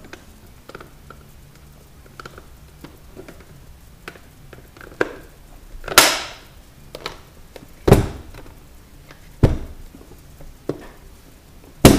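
Hard plastic parts of a refrigerator dairy compartment clicking and knocking as an end cap is snapped on and the assembled bin is handled: light clicks throughout, then four sharp knocks about two seconds apart, starting about six seconds in.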